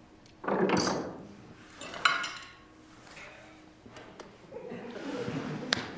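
Sparse dinner-table sounds: a soft rustling burst just under a second in, a sharp clink of tableware about two seconds in, and a low murmur rising near the end.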